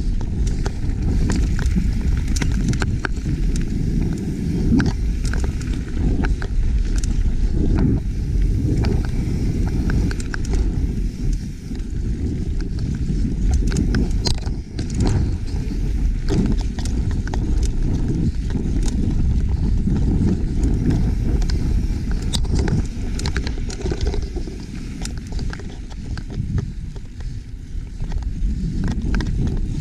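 Wind buffeting the camera's microphone as a YT Capra mountain bike rolls fast over dry dirt singletrack. Tyre noise and frequent sharp clicks and rattles from the bike come over the bumps.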